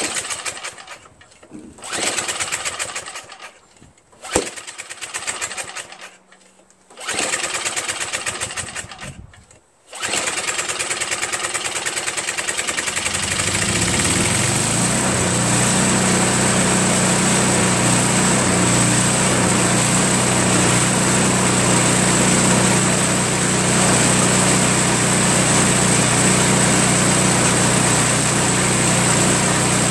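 A Craftsman 524 snowblower's 5 hp Tecumseh engine is pull-started. Several short pulls on the recoil starter each turn it over briefly, then about ten seconds in it catches and settles into a steady run. The engine has little to no compression, from having been run without oil.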